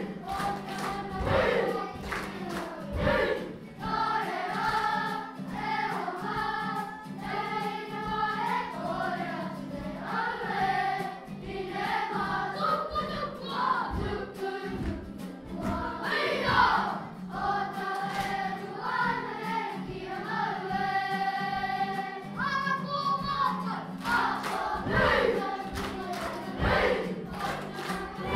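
A group of children singing together as a choir, accompanied by a strummed guitar.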